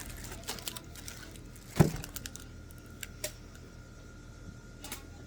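Small items being handled while unpacking: scattered light clicks and rattles, with one louder knock a little under two seconds in.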